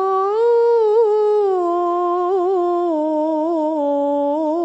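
Quran reciter's voice holding one long melodic note in tilawah style, decorated with small quick wavers and slowly falling in pitch.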